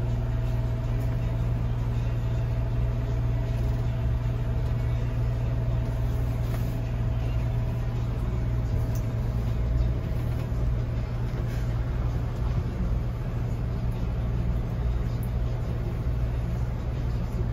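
Class A motorhome heard from inside its cab while driving slowly: a steady low engine and road rumble, with a faint steady whine over it that fades out about halfway through.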